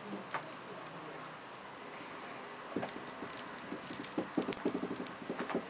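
Glass of a small Siemens phone LCD panel crackling as it is crushed in a bench vise: irregular little cracks and clicks, starting about halfway through and coming thicker near the end.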